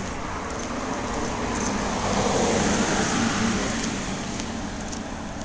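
A car driving past, its tyre and engine noise swelling to a peak mid-way and fading away again.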